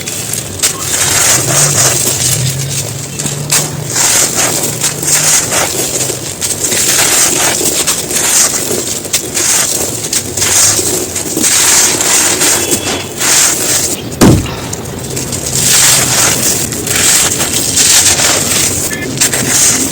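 Chunks of a dry, brittle material being crushed and crumbled, with continuous crackling and crunching and one heavier thump about fourteen seconds in.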